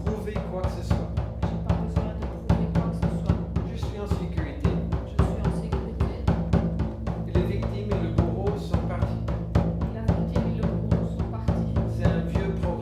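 A large drum struck with a soft fleece-headed mallet in a steady, even beat, its low tone ringing on between strokes.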